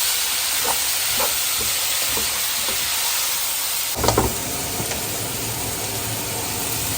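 Steady steamy hiss of an electric kettle reaching the boil, mixed with food sizzling in the frying pan. A sharp click comes about four seconds in.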